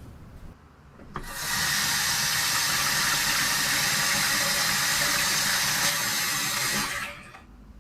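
Water running steadily from a tap, turned on with a click about a second in and shut off near the end.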